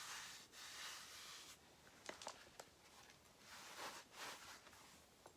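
Faint rustling of handmade junk journal paper pages being handled and turned, in two soft swells, with a few light clicks and taps about two seconds in.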